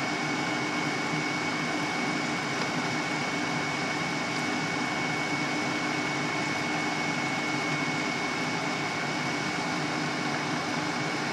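Cornmeal-coated red snapper pieces deep-frying in a pan of hot oil: a steady, dense sizzle, with a thin steady high tone running under it.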